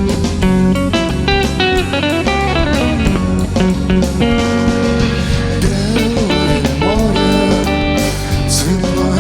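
Band playing an instrumental break with no singing: a guitar plays a melodic lead with bending notes over bass and drums.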